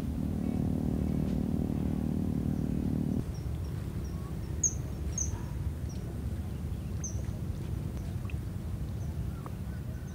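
Background music that stops abruptly about three seconds in; after it, small birds give short, high chirps now and then over a low, steady outdoor rumble.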